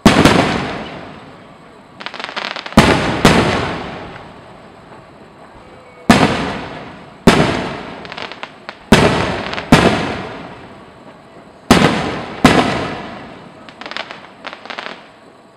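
Aerial firework shells bursting overhead: about ten loud booms, irregularly spaced, each fading out over a second or two, with a few smaller pops near the end.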